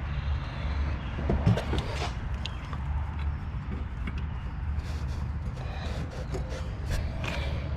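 Scattered light metal clicks and scrapes of hands and tools working at an A/C line fitting in an engine bay, over a steady low hum.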